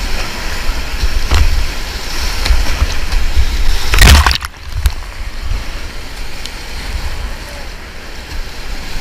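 Whitewater kayaking heard on a helmet- or boat-mounted action camera: rushing river water with low rumble on the microphone, and a loud splash about four seconds in.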